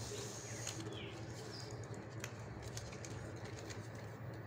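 Strips of fresh coconut palm leaf rustling and clicking faintly as they are folded and threaded by hand, with a few short bird chirps behind.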